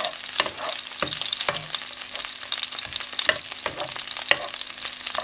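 Sliced garlic sizzling in hot chili oil in a nonstick pan, left to caramelize, with a spatula stirring it and clicking against the pan now and then.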